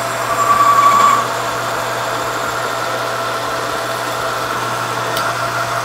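Metal lathe running, its tool machining a thick-walled 4130 chromoly tube: a steady motor hum, with a brief high whine from the cut during the first second or so.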